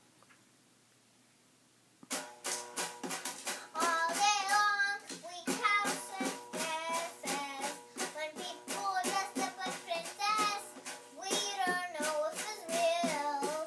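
A young girl singing a made-up song in a wavering voice over instrumental accompaniment with held notes and a steady beat. It starts suddenly about two seconds in, after near silence.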